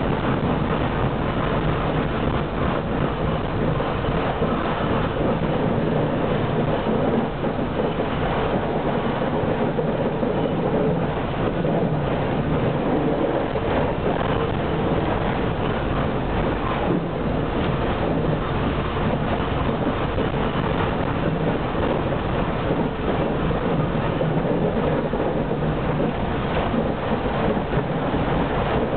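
Tram running along its rails, heard from inside the car: a steady, unbroken noise of wheels on track and running gear.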